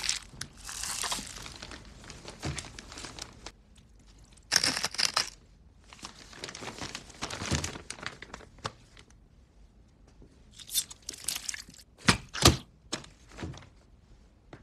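Plastic cling film crinkling and rustling in several bursts as raw meat is wrapped in it. Near the end come two sharp knocks about half a second apart.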